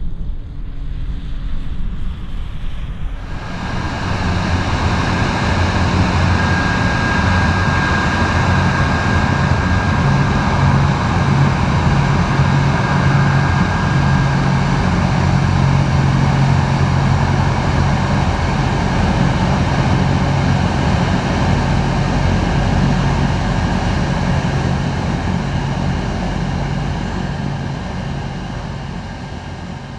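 Piaggio P-180 Avanti's twin pusher turboprops running at high power: a low propeller drone under a wide rush of noise and a steady thin whine. The noise jumps up about three seconds in, holds, and fades away near the end.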